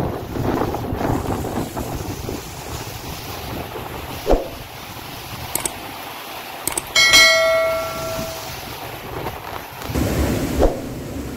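Typhoon wind gusting through palms and trees with rain, the gusts buffeting the microphone. About seven seconds in, a metallic clang rings out and fades over about a second and a half, with a few sharp knocks around it.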